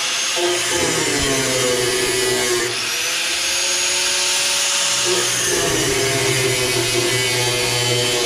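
A power tool cutting into a car's steel frame rail, running steadily with its pitch sagging and recovering as it takes load.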